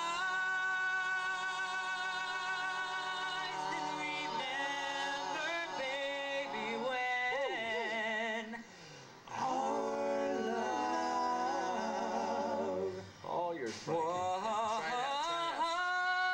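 Male vocal quartet singing unaccompanied close harmony through a PA: long held chords with vibrato and sliding lines between them, breaking off briefly twice.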